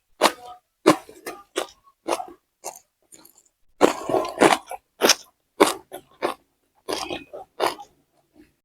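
Close-miked eating: irregular bites, crunchy chewing and wet mouth smacks, thinning out near the end.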